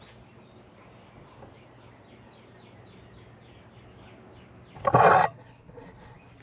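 A bird trilling faintly: a quick run of short falling chirps, about five a second, over a low steady hum. About five seconds in, a loud, short burst of noise cuts across it.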